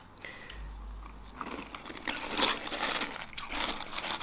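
A person chewing a spoonful of Toast Crunch cereal soaked in almond milk, with soft, irregular crunching that starts about a second in.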